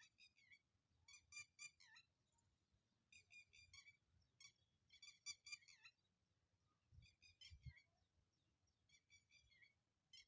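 Faint bird chirping: quick clusters of three to five short, high notes, repeated every second or two.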